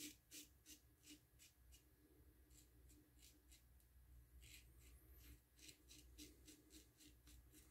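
Faint, short scraping strokes of a GEM single-edge safety razor with a Personna blade cutting stubble on the upper lip, about three strokes a second with a short pause partway through.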